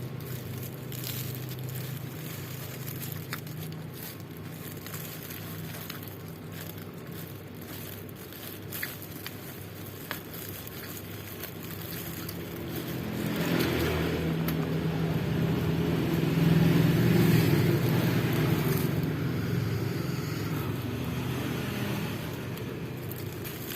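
Road traffic passing: a steady low engine hum, with one vehicle growing louder about halfway through, at its loudest a few seconds later, then fading away. A couple of faint clicks come before it swells.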